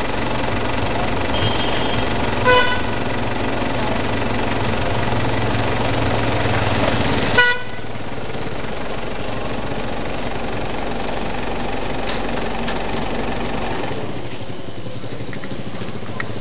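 Steady outdoor street noise with two short vehicle-horn toots, about two and a half seconds in and again about seven seconds in; the background changes abruptly right after the second toot.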